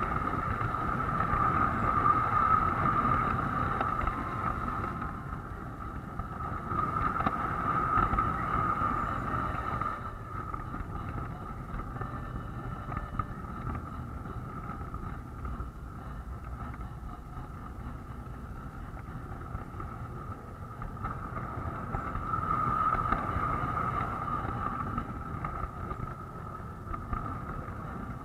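Lionel model train running around its track, heard from a camera riding on the train: a steady rumble of wheels on rail with a constant high hum, swelling and easing as it goes.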